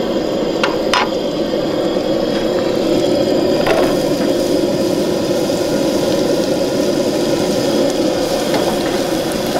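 Butter sizzling in a pot over a propane camp-stove burner, a steady sizzle and burner noise. Chopped onion is scraped off a cutting board into the pot, with a few light clicks and knocks near the start and about four seconds in.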